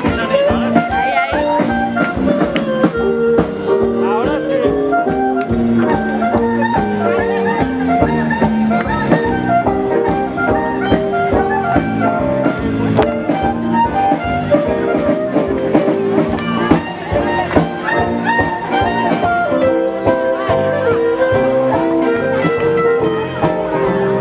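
Swing jazz music with a steady beat, an instrumental stretch of the song without singing.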